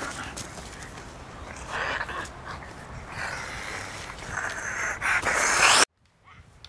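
A person's heavy, noisy breathing in repeated breaths, with a much louder hissing burst about five seconds in that cuts off abruptly into near silence.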